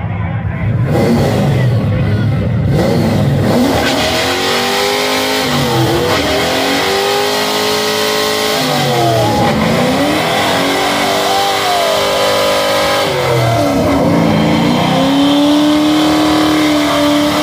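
Chevrolet Camaro doing a burnout: the engine revs up and drops back about four times, its pitch climbing and falling, over a continuous rushing noise from the spinning, smoking rear tyres.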